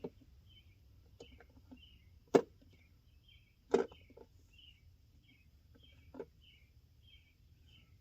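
A few sharp metal clinks of sockets and a ratchet being handled and swapped, the loudest about two and a half, four and six seconds in.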